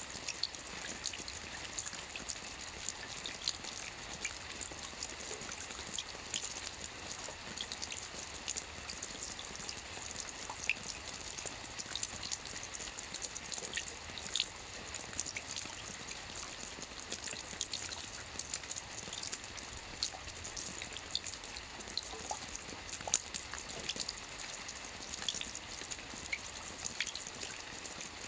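Steady rain falling: an even hiss with many small, sharp drop strikes scattered through it.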